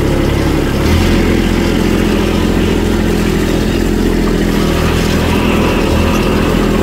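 Kubota BX compact tractor's three-cylinder diesel engine running steadily at close range, heard from the operator's seat; its note steps up slightly about a second in and then holds.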